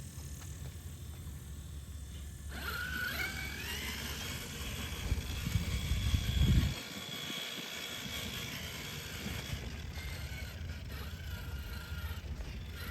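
Axial SCX6 RC crawler's electric motor and drivetrain whining as the truck drives. The whine rises about two and a half seconds in and then holds steady. Loud low rumbling comes a little past the middle and is the loudest part.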